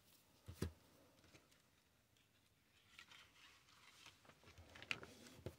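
Near silence, with a few faint taps and rustles of cardstock being handled and pressed down.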